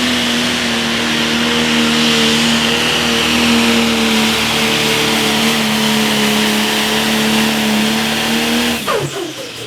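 Turbocharged diesel engine of a John Deere pro stock pulling tractor running flat out at a steady high pitch under full load, with a high turbo whistle over it. Near the end the throttle is cut at the end of the pass, and the engine pitch falls away fast.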